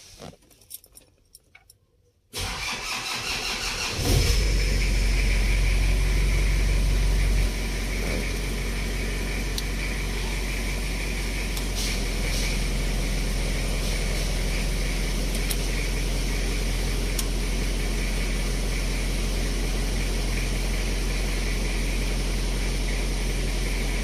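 A few light clicks, then a car engine cranked by the starter for about two seconds, catching and running at a raised idle. A few seconds later it settles to a steady idle.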